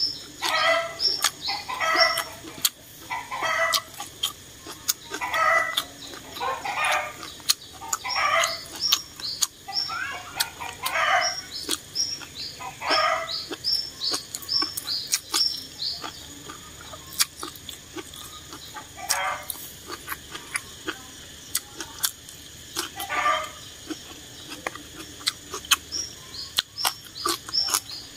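Close-up eating sounds: small wet mouth clicks from chewing and slurping rice noodles. Behind them, birds call repeatedly, with lower clucking calls about once a second for the first half and runs of quick, high chirps.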